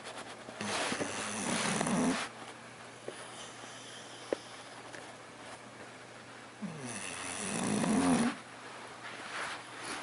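English bulldog snoring in deep sleep: two long, rattling snores about six seconds apart, each growing louder and then stopping abruptly, with a fainter breath near the end.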